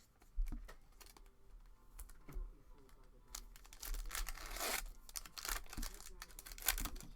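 Trading cards and their foil pack wrapper being handled: light clicks and rustles of cards, with a tearing, crinkling sound about four to five seconds in.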